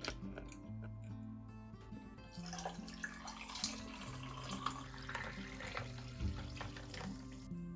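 Liquid poured into a tall glass over ice cubes, a splashing pour that starts a couple of seconds in and stops just before the end, with background music throughout.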